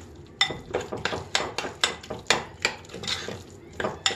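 A spoon stirring a mashed lentil and onion salad in a glass bowl, clinking and knocking against the glass about three times a second in an uneven rhythm.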